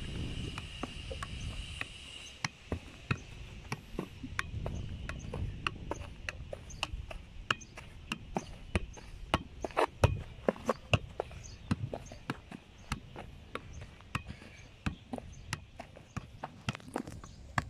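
A football being juggled on football boots: a quick, irregular run of sharp taps as the ball is touched up again and again, several touches a second.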